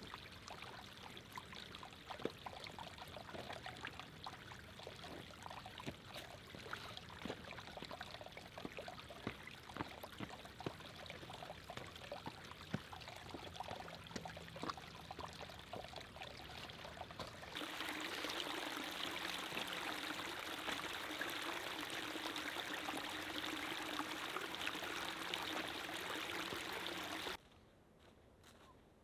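Small rocky woodland stream trickling and splashing over stones. It grows louder and fuller about two-thirds of the way through, then cuts off suddenly near the end.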